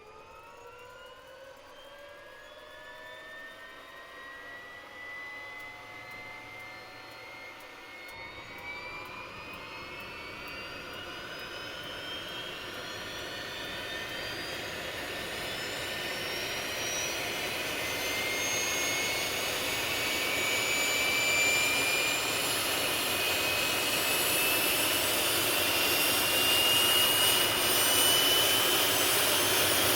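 Jet engine spooling up: several whining tones rise slowly and steadily in pitch while a rushing roar builds beneath them, the whole sound growing steadily louder.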